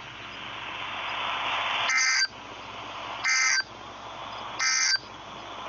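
Emergency Alert System end-of-message data signal: three short two-tone digital warbles about 1.3 seconds apart over a steady radio hiss. The bursts mark the end of the alert broadcast.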